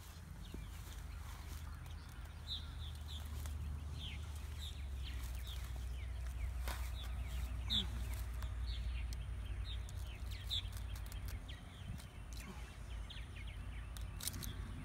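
Birds calling in short, falling chirps every second or so, over a low steady rumble.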